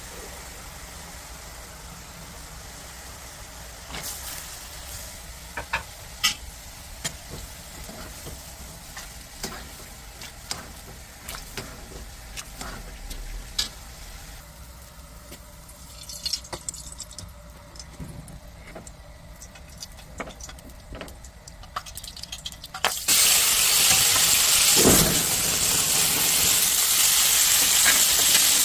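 Water simmering in a pan, with scattered clinks of a metal mesh skimmer against the pan as cucumber slices are blanched. About 23 seconds in, a sudden loud, steady sizzle starts as cucumber and oysters go into a hot frying pan.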